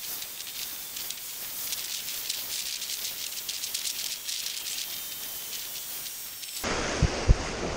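Surf washing up the sand, heard as a steady hiss with fine crackling and little low rumble. About seven seconds in it switches abruptly to louder wind and wave noise, with two thumps of wind against the microphone.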